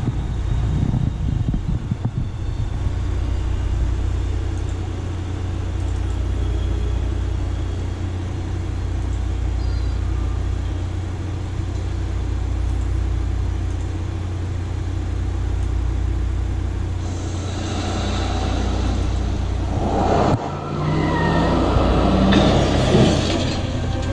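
Film soundtrack from a DVD playing through an eMac's built-in speakers: a steady low rumble, swelling into a louder, noisier passage with some pitched sounds from about three-quarters of the way in.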